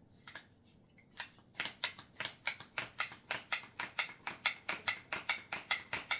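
Quick, regular strokes of a small handheld mini tire pump inflating a stroller inner tube, about four a second, growing louder as the pumping goes on.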